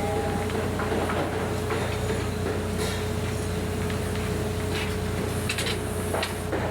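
Construction machinery running with a steady low hum and a constant whine, with scattered metal knocks and clanks that come more often near the end.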